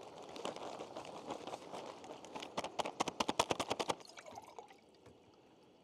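Water glugging as it is poured, the glugs coming quickly and evenly, about ten a second, loudest from about two and a half to four seconds in, then stopping.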